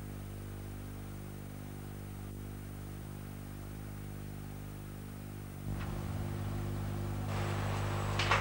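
Steady low hum with faint hiss. It gets louder about two-thirds of the way in as more hiss comes in, and there is one short click near the end.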